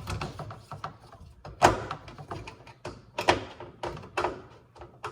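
Screwdriver prying at the plastic handle and trim of a microwave door: a run of sharp plastic clicks and knocks, with a few louder snaps about a second apart among lighter taps.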